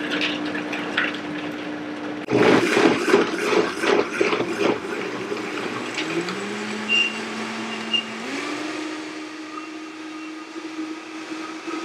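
Vitamix Creations blender motor running through a thick smoothie of frozen fruit, frozen broccoli and spinach. For a few seconds the chunks knock and clatter in the jar. Then the blend runs smooth, and the motor's pitch steps up as its speed rises.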